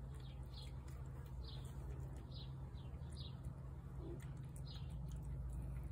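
Small bird chirping over and over, short notes that fall in pitch, over a steady low hum.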